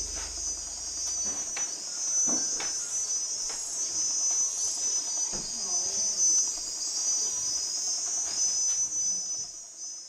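Rainforest insect chorus: a dense, steady, high-pitched shrilling, with scattered faint clicks and short calls beneath it. The tail of low background music dies away in the first second or so, and the chorus fades out near the end.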